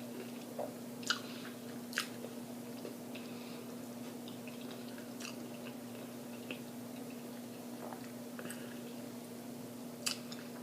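A person chewing food with the mouth open, with a few sharp smacks or crunches, the clearest about one and two seconds in and again near the end. A steady low hum runs underneath.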